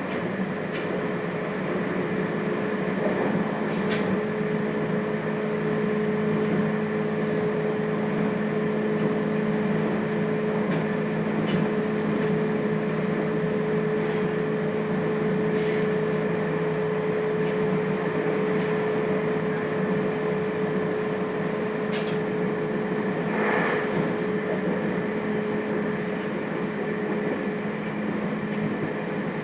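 JR Hokkaido 721 series electric train with thyristor phase control, heard from inside its motor car: a steady running hum with one held tone, with a few short clicks and knocks along the way.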